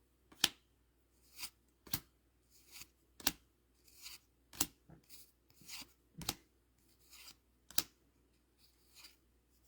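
Score Dragon Ball Z trading cards being flicked through one by one from a freshly opened booster pack: a short, sharp snap every half second to a second as each card slides off the next, with soft sliding rustle between.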